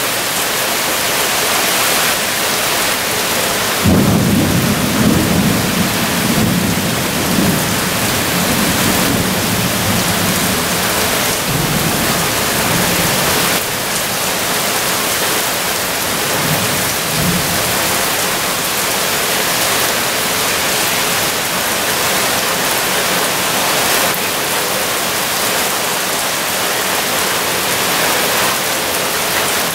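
Heavy downpour of thunderstorm rain, steady throughout. A peal of thunder breaks suddenly about four seconds in and rumbles on for several seconds, with a shorter rumble later.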